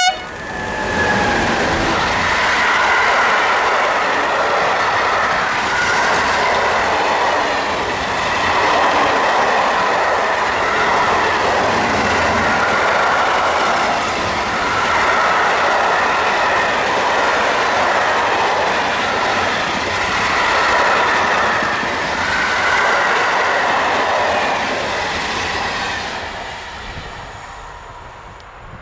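A long train passing close by on the electrified main line: steady, loud rolling noise with clickety-clack over the rail joints and squealing wheel tones, fading away over the last few seconds. A horn blast cuts off just as it begins.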